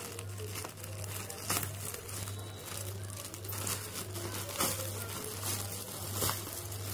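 Plastic courier mailer bag crinkling and tearing as it is ripped open by hand, with a few sharper rips.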